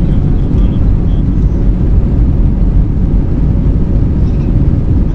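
Cabin noise inside an Airbus A321 on the ground: a steady low rumble of the jet engines and airframe, with a faint steady hum above it.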